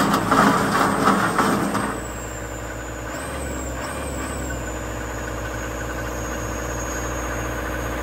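Diesel engine of a Komatsu WB140-2N backhoe loader running, louder and rougher for about the first two seconds, then settling to a steady idle.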